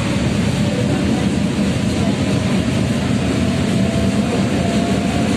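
Tatra KT3UA tram running at speed, heard from inside the car: a steady rumble of wheels on rail with a faint whine that rises slightly in pitch.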